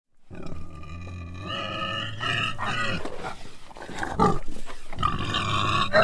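An animal squealing: long pitched squeals, broken in the middle by a run of shorter, choppier calls, then another long squeal near the end.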